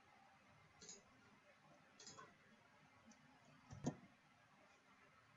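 A few faint clicks from a computer mouse and keyboard, the loudest just under four seconds in, over near silence.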